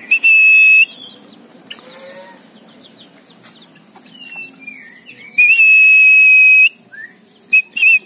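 Loud high whistle held on one steady pitch, given as a short blast near the start, a longer one of just over a second in the middle and two quick blips near the end, a call to bring a free-flying tame bird back in. Fainter chirps and gliding bird-like notes sound between the blasts.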